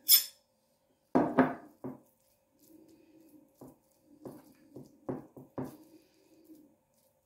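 A metal fork tapping and scraping on a porcelain plate in short, uneven clicks while spreading mashed canned mackerel, with soft scuffing between the taps. A louder clunk about a second in, as a small emptied plate is set down on the wooden table.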